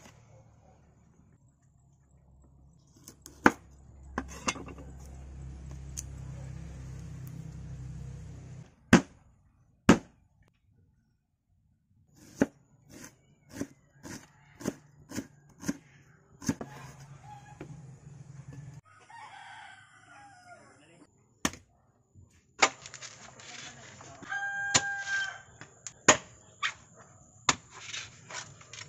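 Kitchen knife chopping on a wooden cutting board in sharp single strokes, a rooster crowing about twenty seconds in, and near the end a bolo knife striking a coconut shell. A low steady hum runs for several seconds near the start.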